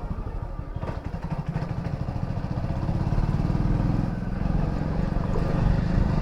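Hero Splendor motorcycle's single-cylinder four-stroke engine running, a quick, even putter of firing strokes that grows a little louder about halfway through.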